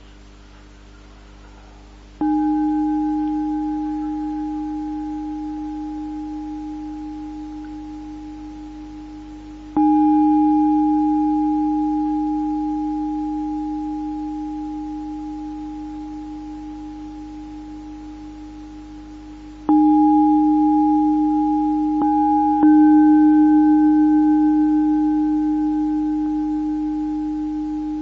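A metal singing bowl struck about four times, each stroke ringing in one low steady tone with a fainter higher overtone and fading slowly with a slight pulsing.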